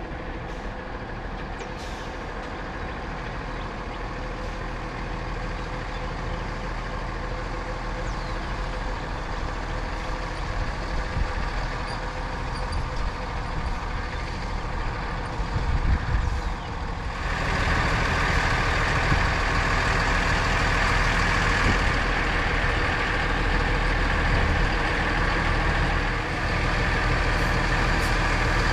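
Class A motorhome's engine running steadily while it is manoeuvred into its campsite. About two-thirds of the way through, a louder steady rushing noise comes in suddenly and holds.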